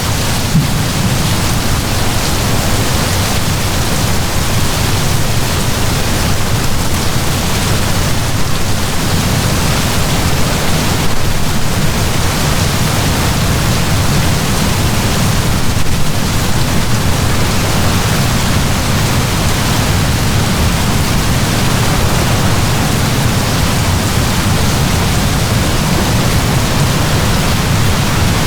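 Heavy downpour of rain, a steady dense hiss with a deep low rumble underneath, swelling slightly now and then.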